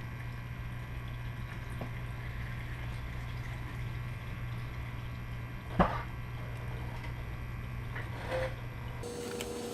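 Motorcycle engine oil trickling out into a drain pan over a steady low hum, with one sharp knock about six seconds in.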